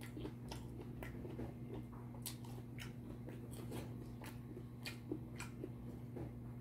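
Close-miked eating sounds: chewing and lip smacks of beef stew with chopsticks clicking against the bowl, heard as scattered short clicks and wet mouth noises. A steady low hum runs underneath.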